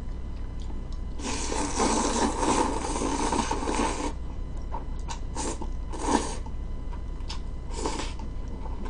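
A person slurping a long mouthful of jjolmyeon, chewy Korean cold noodles in spicy sauce, for about three seconds, then a few short wet mouth smacks while chewing.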